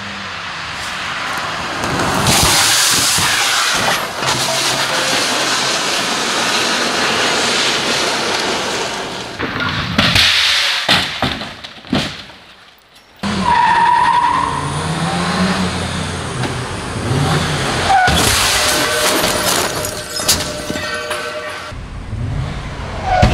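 Car engine running hard with tyres skidding and scrabbling on dirt and gravel as the car is thrown onto two wheels in a rollover stunt. Near the middle the sound drops away briefly, then car and street noise start again abruptly.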